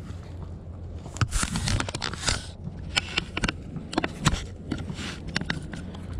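Close handling noise: irregular scraping and rustling with several sharp clicks, over a steady low hum.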